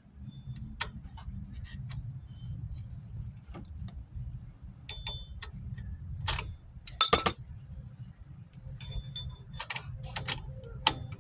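Light metallic clicks and clinks of drum-brake springs and hardware being handled, with a louder rattle about seven seconds in.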